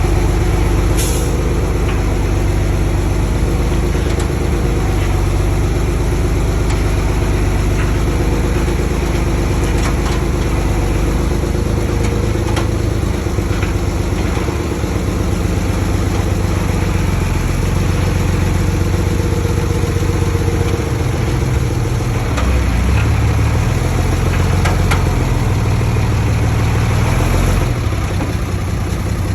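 Heavy diesel engine of earth-moving machinery running steadily, its pitch shifting now and then, with a couple of brief metallic knocks.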